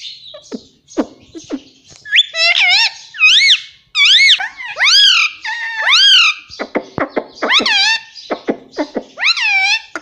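Indian ringneck parrot vocalising: a run of loud, rising-and-falling calls, about one a second, with short clicking sounds between them.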